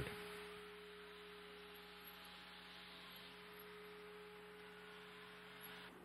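Near silence: a faint steady electrical hum with light hiss.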